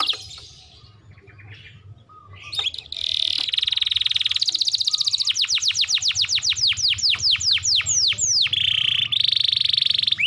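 Domestic canary singing: a few soft chirps, then from about three seconds in a loud song of rapidly repeated notes. It turns into a run of fast downward-sweeping notes and ends in a buzzy trill.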